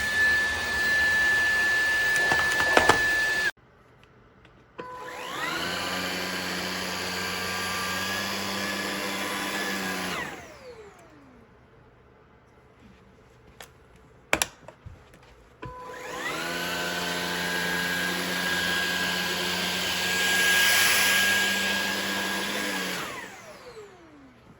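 Levoit cordless stick vacuum motor running with a steady high whine that cuts off abruptly a few seconds in. It is started twice more, each time spinning up with a rising whine, running steadily for about five to seven seconds, then winding down with falling pitch. There is a sharp click between the two runs.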